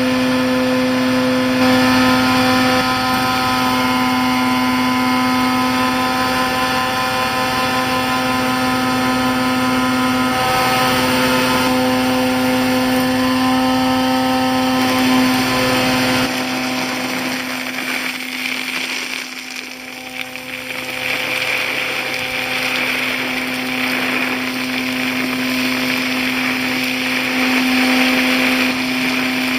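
CAPBORA vacuum truck running its suction unit for sucking up roof gravel: a steady, loud machine hum with a constant whine. A higher rushing noise grows in about two-thirds of the way through, after the low hum briefly dips.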